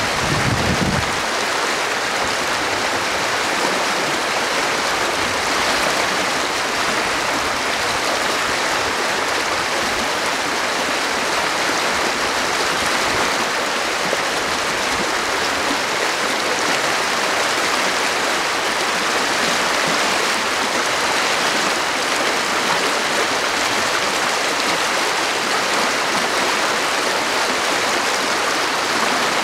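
Rain-swollen creek in flash flood, its brown water rushing fast and churning in an even, loud, unbroken wash.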